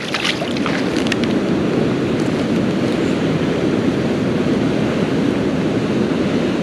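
Steady rush of flowing creek water, with a few short sharp sounds in the first second or so.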